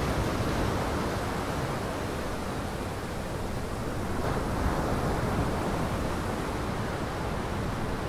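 Steady rush of surf and wind, with a low wind rumble on the microphone, swelling slightly about four seconds in.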